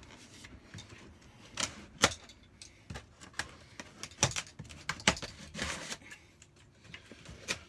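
A knife cutting plastic packing straps and tape on a cardboard box: irregular sharp clicks and short scrapes as the blade slices and a strap springs loose.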